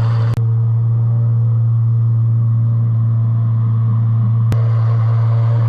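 A vehicle engine running steadily with a low, even hum, broken by two brief sharp clicks, one right at the start and one near the end.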